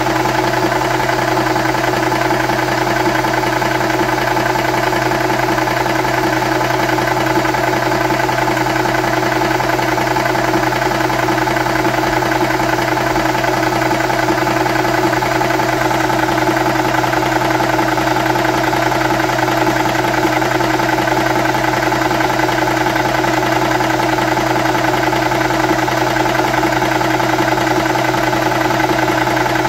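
Wolf 300 bar high-pressure air-gun compressor and its cooling fan running steadily, an even mechanical hum that does not change, as it builds pressure to fill an air rifle.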